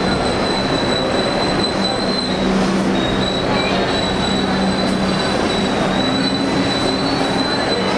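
New York City Subway train cars moving along the platform, their wheels squealing steadily in a high pitch over a continuous running din with a low hum.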